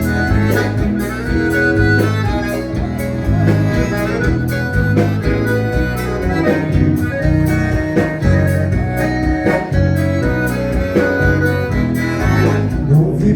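Live gaúcho band playing an instrumental passage of a chamamé, the button accordion carrying the melody over strummed guitar and a steady bass beat.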